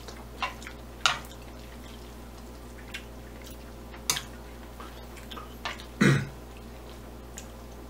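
Metal chopsticks clicking and scraping in a nonstick frying pan, a few light clicks over a steady low hum, with a short vocal sound about six seconds in.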